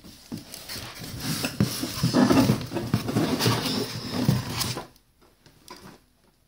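Cardboard shipping box being handled as a boxed toy is pulled out of it: rustling, scraping and knocking of cardboard. After about five seconds it drops to near quiet with a few faint clicks.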